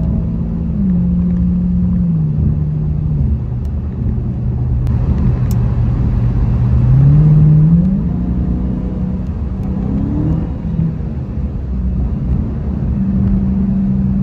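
Dodge Hellcat's supercharged 6.2-litre V8 heard from inside the cabin on the highway: its steady drone steps down in pitch several times in the first few seconds, climbs and gets louder about seven seconds in, then steps down again near the end.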